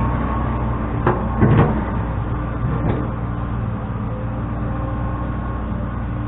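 Engine of a machine moving dirt running steadily, with a few short clanks about a second in and again near three seconds.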